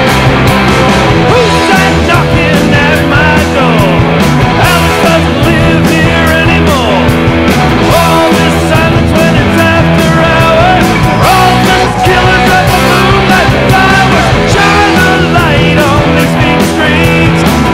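Rock music from a band with electric guitars and a steady beat, the lead guitar bending and sliding between notes.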